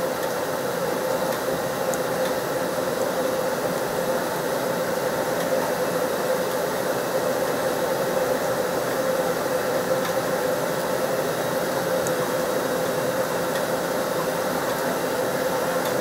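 Steady rushing noise with a constant hum from a stall kitchen's range-hood exhaust fan running over the stove.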